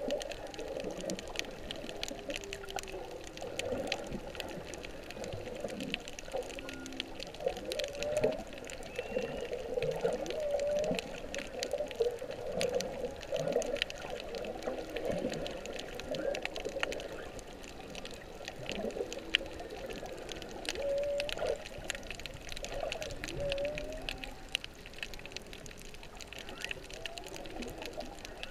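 Humpback whale song recorded underwater: a continuous string of low calls that glide up and down in pitch, over a steady crackle of clicks.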